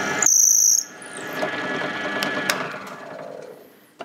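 Bench pillar drill with a 6mm brad point bit finishing a hole through plywood: its running sound cuts out with a brief high squeal, then the motor and chuck spin down with a falling whine and a few light clicks.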